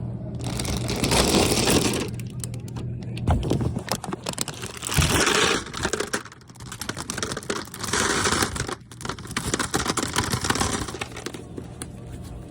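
Handling noises at a snack vending machine: scattered clicks and several stretches of rubbing or rustling, each about a second long.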